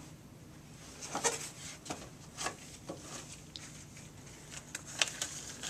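Light rustling and a scattered series of short clicks from hands handling small plastic medical supplies, over a faint steady room hum.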